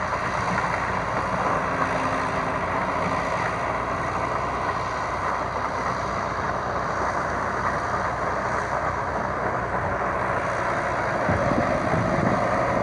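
Shibaura V52F tractor's 52-horsepower four-cylinder diesel engine running steadily under load as it pulls a rotary tiller through wet paddy soil. The engine note gets slightly heavier near the end.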